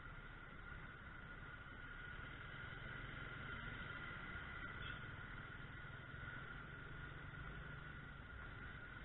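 Faint, steady running noise of a 50cc Yuki Gusto scooter moving slowly in traffic, with a constant high whine over a low hum.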